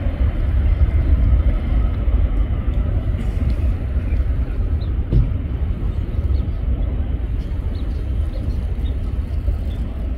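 Distant jet airliner engines at takeoff thrust: a steady low rumble.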